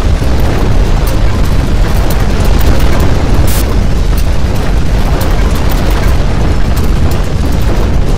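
Loud, continuous deep earthquake rumble, the ground shaking, with scattered cracks and a sharper crack about three and a half seconds in.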